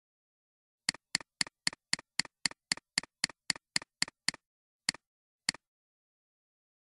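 Computer mouse button clicking: a quick even run of about fourteen sharp clicks, roughly four a second, then two more clicks spaced further apart.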